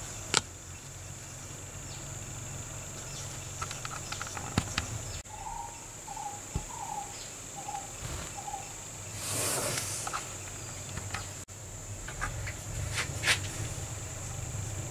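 Scattered small clicks and taps of a paintbrush being handled in a plastic cup of oil while finishing a wooden knife handle, over a steady high-pitched whine and low hum. The sharpest click comes about half a second in, and there is a short rushing swish near the middle.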